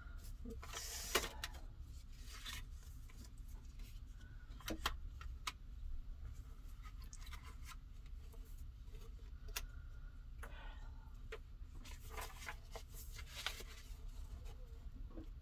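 Light clicks and short scratchy rustles of cards and paper being handled at a table, over a steady low hum.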